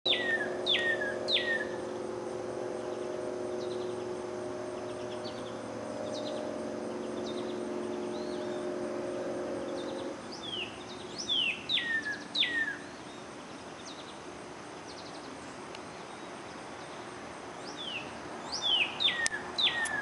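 Male northern cardinal singing: loud clear whistles, each sliding sharply downward, delivered in quick runs of three or more, at the start, about halfway and near the end. A steady low hum underneath stops about halfway.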